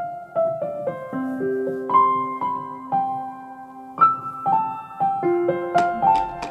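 Background piano music: a slow melody of single held notes. About five and a half seconds in, a beat of sharp, evenly spaced clicks joins, about three a second.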